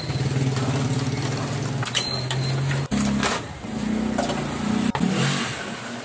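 A motor running in spurts: a steady low hum that cuts out abruptly about three seconds in, then resumes at a higher, wavering pitch, with a few sharp clicks.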